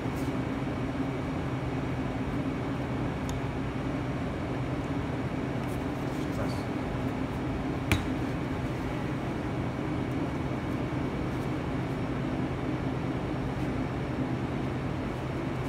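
Steady hum and rush of a kitchen ventilation fan running without change. A single sharp knock about halfway through as the glass sauce bottle is set down on the counter.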